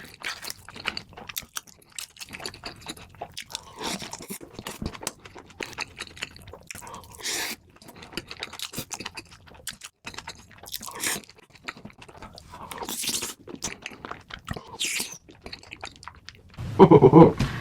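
Close-miked chewing and biting of crunchy fried food, with irregular crackling crunches and wet mouth sounds. A voice breaks in about a second before the end.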